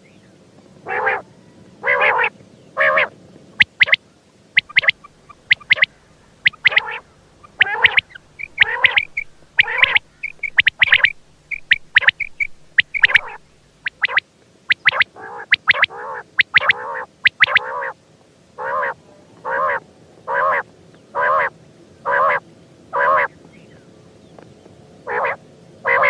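Quail (batair) calling over and over in short, harsh notes. The calls are bunched irregularly at first, then come in a steady series of about one per second, with a few higher chirps mixed in partway through.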